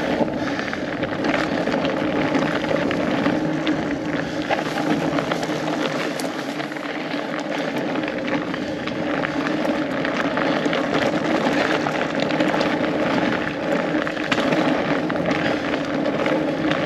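Riding noise from a studded fat bike rolling over a frozen, snow-covered trail: a steady rush full of small crackles from the tires, with wind buffeting the microphone.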